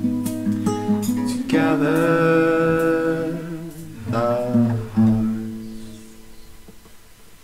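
Acoustic guitar and singing closing a song: a held, wavering sung note about a second and a half in, a few more guitar notes, then a last chord rings and fades away.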